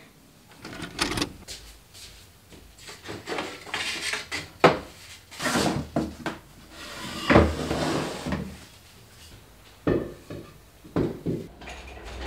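Wooden offcuts knocking together and against a plastic storage box as they are rummaged through and pulled out: a string of separate knocks and clicks with a couple of longer scraping rustles.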